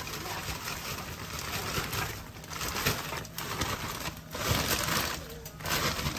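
Broccoli florets poured from a plastic bag into a pan, clattering in in several bursts with some crinkling of the bag.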